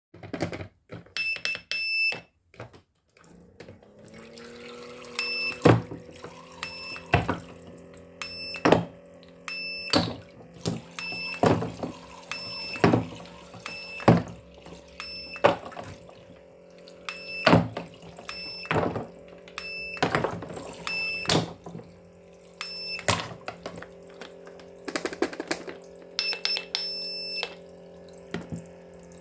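A battery-powered toy sink pump starts about four seconds in and keeps running with a steady hum, with water trickling from the toy faucet. Over it a toy cash register beeps briefly with each button press, and plastic pieces click and clack.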